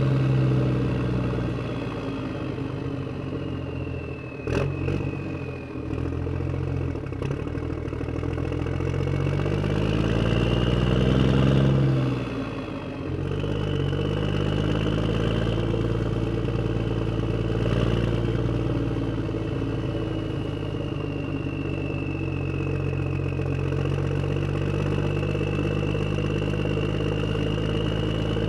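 Motor vehicle engine running as it drives away, with a sharp knock about four seconds in. The engine note climbs for a few seconds, drops suddenly as if shifting gear, then runs steadily.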